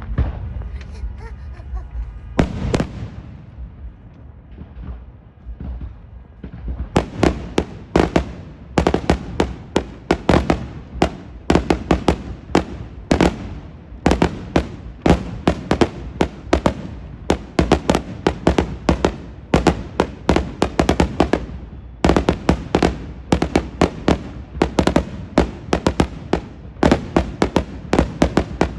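Fireworks going off: a few scattered bangs at first, then from about seven seconds in a dense, continuous run of sharp firecracker bangs, many a second.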